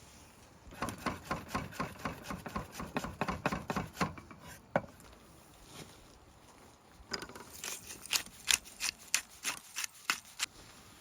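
Knife chopping quickly on a cutting board, about five strokes a second, in two runs with a pause of about two seconds between them.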